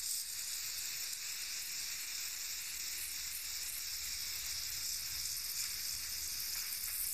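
Aerosol spray paint can (Krylon Fusion for plastic, gloss white) spraying in one continuous steady hiss as the nozzle is held down.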